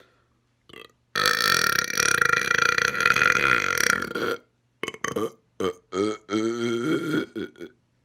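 A man's long, loud, deliberate burp lasting about three seconds, starting about a second in, then a run of shorter burps.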